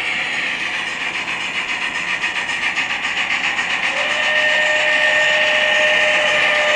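Loksound 5 sound decoder in an HO-scale SAR GMAM Garratt model playing quick, rhythmic steam exhaust chuffs through its small onboard speakers. About four seconds in a held whistle tone starts, sinking slightly in pitch.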